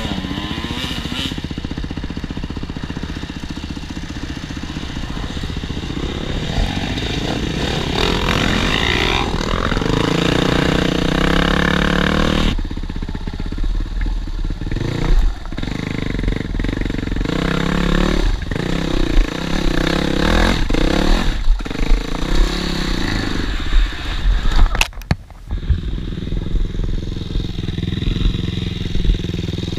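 Dirt bike engine revving up and down as the bike is ridden hard along a rough trail, heard close from the rider's helmet camera. The engine drops off suddenly about twelve seconds in, then picks up again amid sharp knocks and clatter from the bike over bumps.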